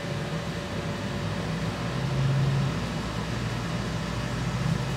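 A steady low mechanical hum, a little louder for a moment about two seconds in.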